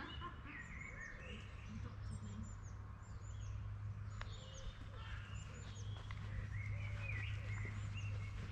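Outdoor birdsong: many short chirps, quick hooked notes and warbling phrases overlapping, with a steady low hum underneath from about a second and a half in.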